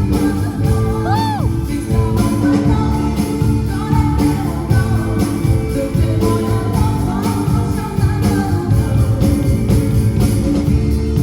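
Pop song music with a steady beat and a jingling, bell-like percussion over held notes.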